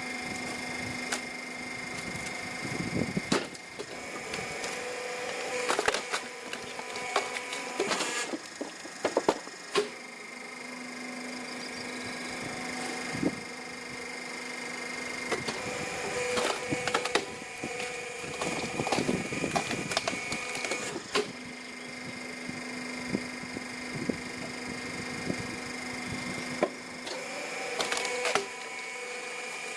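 Hydraulic wood splitter at work. A steady machine whine comes and goes in spells of several seconds, while logs crack and splinter in sharp snaps throughout.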